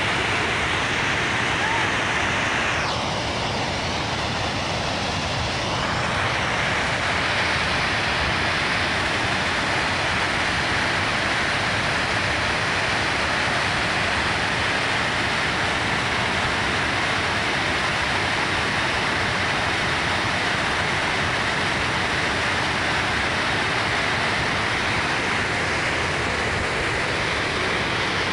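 Water pouring over a low river dam: a steady, continuous rush of white water.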